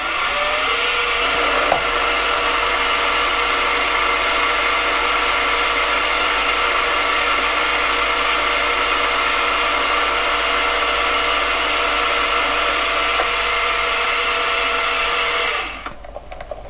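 Mini lathe running with a steady whine from its motor and gears while the spindle turns and the power feed takes a second, light spring pass along a plastic bar. The lathe switches off and runs down near the end.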